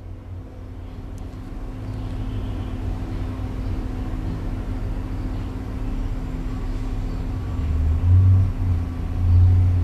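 12-inch Panasonic table fan running on high: a steady motor hum under the rush of air, with the airflow buffeting the microphone as a low rumble. The rumble swells twice near the end.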